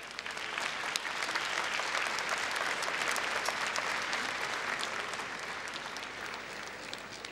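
Audience applauding: the clapping builds over the first second, holds, then slowly dies away toward the end.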